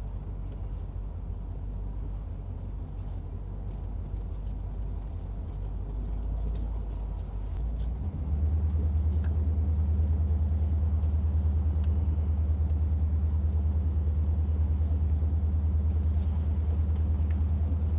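1981 Corvette's 350 V8 running while the car drives, heard as a steady low rumble from inside the cabin. About eight seconds in, the rumble gets louder and stays up.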